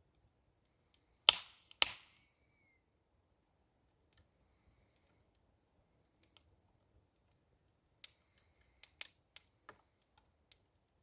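Small branch fire crackling: two loud sharp pops a little over a second in, then scattered quieter pops and snaps near the end.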